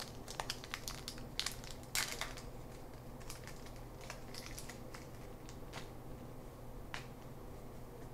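Wrapper of a 2006 Topps Opening Day trading card pack crinkling and crackling as it is opened, with dense crackles for the first two seconds or so and then only scattered ones.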